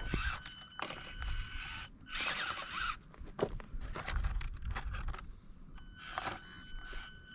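Axial SCX24 Deadbolt micro RC crawler's small electric motor giving a thin steady whine, on and off, as it crawls over rock, with scrapes and clicks of tyres and chassis on the stones and a low rumble underneath.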